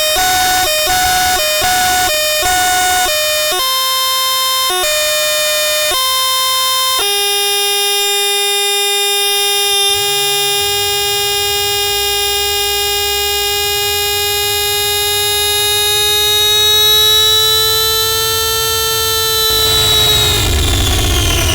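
Harsh noise electronics putting out a loud, buzzy pitched tone. It starts as short pulses about twice a second, moves to notes stepping between two pitches, then holds one long drone that edges up in pitch, and breaks into swooping glides near the end.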